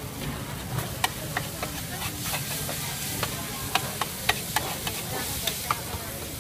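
Metal spatula scraping and clinking against a large iron frying pan as fried noodles sizzle on it: repeated sharp clinks over a steady hiss.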